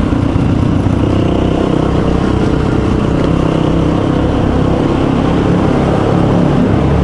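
Dual-sport motorcycles running steadily while riding through a road tunnel.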